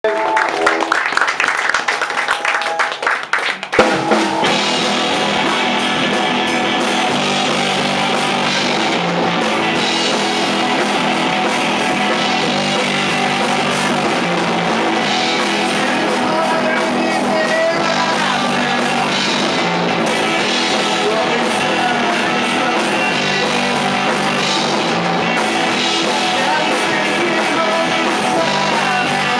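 A rock band playing live: electric guitars and drum kit, with singing. A short opening passage breaks off sharply about four seconds in, and the full band carries on steadily after it.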